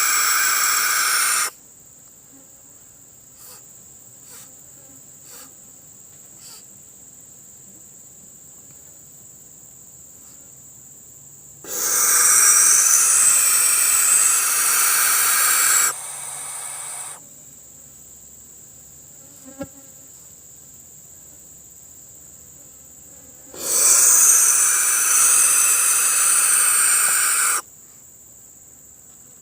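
Barn owl giving long, harsh hisses of about four seconds each: one at the start, one about 12 seconds in and one about 24 seconds in. Between the hisses a steady, high, thin insect-like tone carries on.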